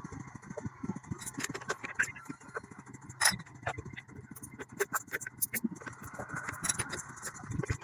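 A lathe motor running with a steady low hum and a faint high whine, under many irregular sharp metallic clicks and taps.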